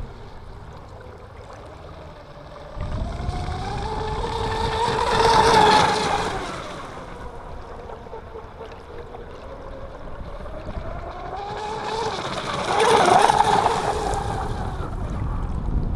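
Electric radio-controlled speedboat running at speed and passing by twice, peaking about five seconds in and again near thirteen seconds. Each time its motor whine rises in pitch as it approaches and falls as it moves away, with a hiss over it.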